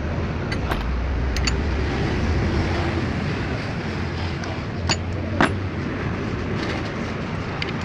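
A few sharp metallic clicks of a hand tool as the last spark plug of the engine is taken out, over a steady low rumble of background traffic.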